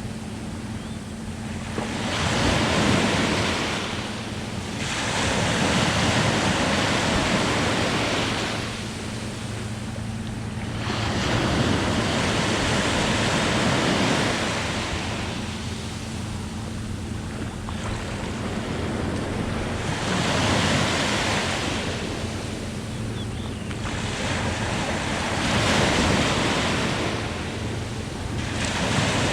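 Sea waves breaking on the shore, the surf rising and falling in a swell every few seconds.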